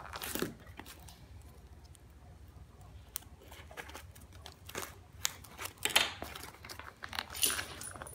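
Small scissors cutting and scraping at a taped cardboard mailing box, with tape and cardboard crinkling and tearing in short, irregular bursts, the loudest about six and seven and a half seconds in.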